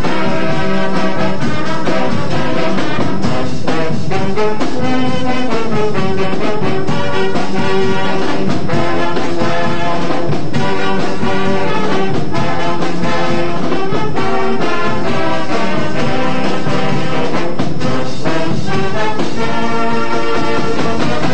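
High school marching band playing a loud brass-led arrangement, with trombones and trumpets carrying full chords and sharp accented attacks.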